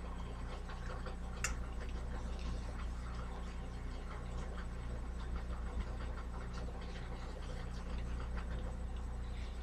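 Soapy wet cloth scrubbing a stovetop: irregular rubbing and scratching strokes, with one sharper click about a second and a half in, over a steady low hum.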